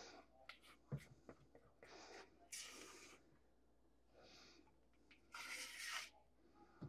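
Faint sounds of a silicone spatula scraping a soft cream cheese mixture out of a bowl and into a steel mixing bowl: a sharp tap about a second in, then two longer scrapes.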